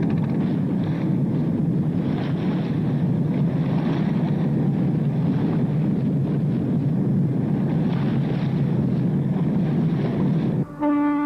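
A steady, loud low rumble, like massed boat engines and water noise. About ten seconds in it stops abruptly and a deep horn begins sounding in short repeated blasts.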